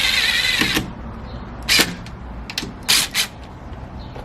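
A short mechanical whir that cuts off under a second in, followed by sharp clacks of hardware being handled, one near the middle and a quick pair about three seconds in.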